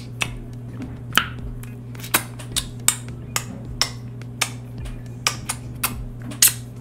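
Wet mouth clicks and lip smacks, about a dozen irregular ones, roughly two a second, from sucking and licking lemon juice off sticky fingers right at the microphone. A steady low electrical hum runs underneath.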